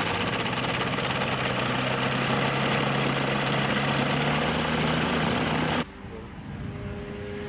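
Michael Whittaker MW7 homebuilt ultralight's propeller engine running steadily, a loud drone with a steady hum heard close up. About six seconds in it drops suddenly to a quieter, more distant engine sound.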